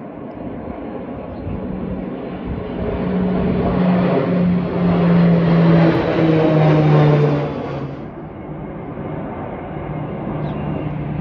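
A formation of small single-engine military aircraft flying low overhead: their engine drone swells, peaks in the middle with its pitch sliding down as they pass, then falls away sharply. Near the end the drone of the next aircraft group starts to build.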